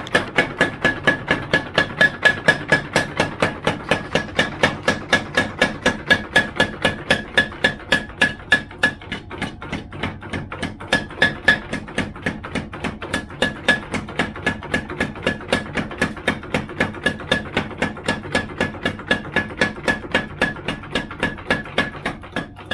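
Hammer blows on a hot steel knife blade against an anvil, a steady rapid rhythm of about four strikes a second, each with a bright metallic ring, as the blade is forged into shape.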